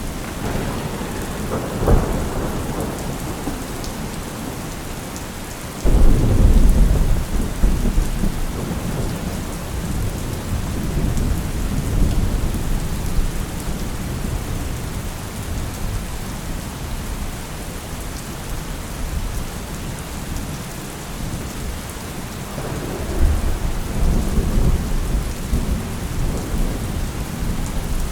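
Steady rain falling, with thunder: a sharp crack about two seconds in, a sudden heavy low rumble about six seconds in that rolls on and fades over several seconds, and another rolling rumble near the end.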